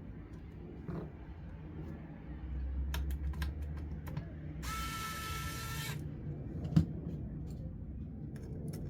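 Small tools and hardware being handled on a workbench, with scattered sharp clicks. Near the middle a hissing burst with a steady whine lasts about a second and a half, and a single loud knock comes near the end.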